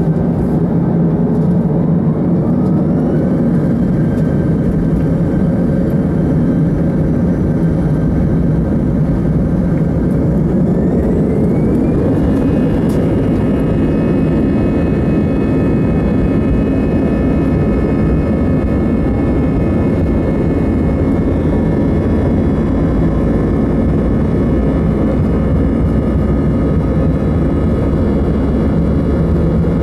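Airbus A320's jet engines spooling up for take-off, heard from inside the cabin. A whine rises about a second in and holds, then climbs again higher about ten seconds in and holds steady over a deep rumble as the take-off roll gets under way.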